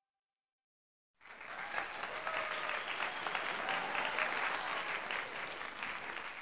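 Applause: many hands clapping together, starting suddenly about a second in after near silence and tapering off near the end.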